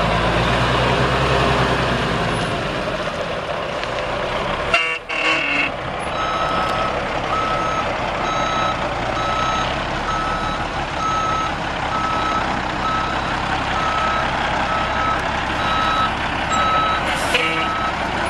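Diesel truck (Cummins LTA10 straight-six) running, with a short sharp burst of noise about five seconds in. From about six seconds the truck's backup alarm beeps steadily, about once a second, as it reverses.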